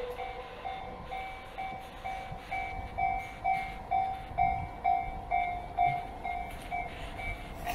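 Japanese railway level-crossing alarm ringing its repeated two-pitch ding at about two strikes a second, with a low rumble underneath. It is loudest in the middle and drops off near the end.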